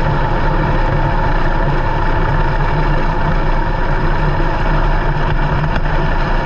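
Sprint car's V8 engine running steadily at low revs, heard from an onboard camera inside the cockpit, with no revving up or down.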